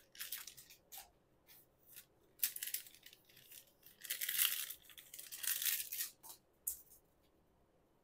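Foil trading-card booster-pack wrappers crinkling and tearing by hand in four short bursts, with a couple of light ticks near the end.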